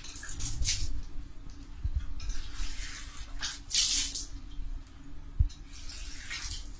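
Water spurting from a flexible push-to-open wall tap into cupped hands during ablution, starting and stopping in short runs as the spout is pushed and let go. A single dull bump a little after five seconds in.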